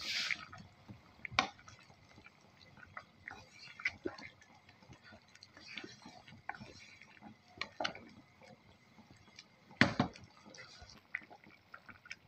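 Thick curry simmering in a nonstick pan, with small bubbles popping irregularly while a wooden spatula stirs through it. A louder knock comes about ten seconds in.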